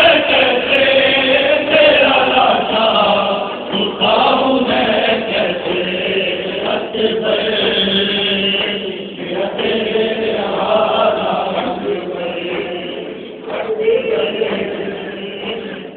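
A crowd of voices chanting together in long, held lines: a Muharram mourning chant.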